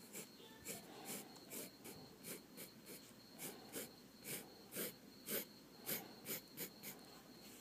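Drawing strokes on paper: a quick, uneven run of short scratching strokes, about two to three a second, over a faint steady high-pitched whine.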